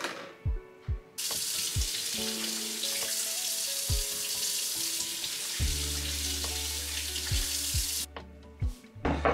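Kitchen tap running into the sink, starting about a second in and shutting off sharply about a second before the end, over quiet background music with a steady beat.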